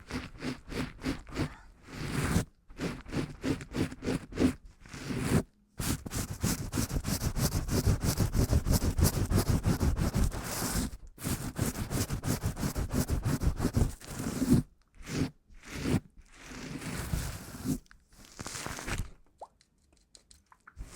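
Close-miked ASMR scratching and tapping: runs of quick strokes, several a second, broken by short pauses.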